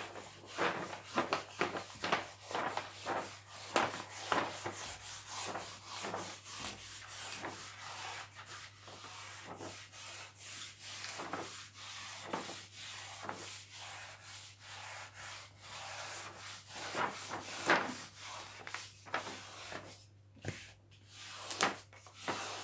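Repeated rubbing strokes of a hand or scraper over the plastic protective film on an adhesive diamond-painting canvas, pressing the film down to push out trapped air. The strokes come a couple per second, with a short pause near the end.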